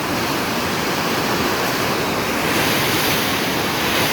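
Flooded river rushing steadily, a continuous loud wash of fast-moving high water.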